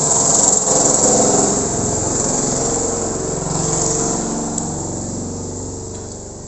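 A small engine running, its pitch drifting a little, fading away over the last couple of seconds.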